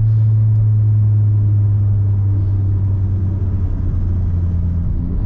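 Volkswagen T-Cross's 1.0 TSI three-cylinder turbo engine running with its exhaust disconnected after the catalytic converter, straight out with no muffler, giving a loud, steady low drone of exhaust resonance while slowing down. The drone weakens a little about three seconds in and comes back just at the end.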